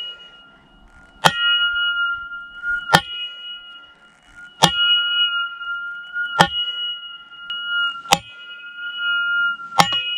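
The Cold Steel Pole Axe's 1055 carbon steel head striking an upright iron post six times, about one blow every 1.7 seconds. Each blow is a sharp metallic clang, and the metal rings on with a steady high tone until the next strike.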